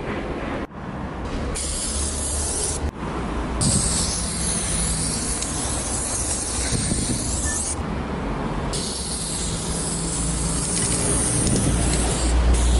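Aerosol spray paint can spraying onto a concrete wall in three long hisses with short breaks between them, over a low rumble. The sound drops out abruptly twice in the first few seconds.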